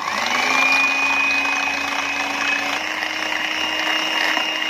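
Electric hand mixer switched on and whipping cream in a glass bowl, its beaters running with a steady motor whine. The pitch steps up slightly about three seconds in.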